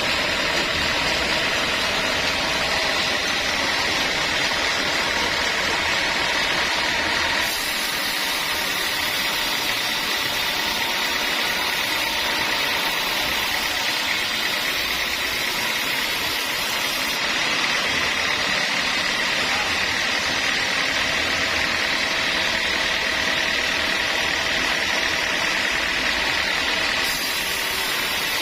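Sawmill saw running, a steady loud mechanical noise with a high whine through it. The sound shifts slightly about a third of the way in and again about two thirds of the way in.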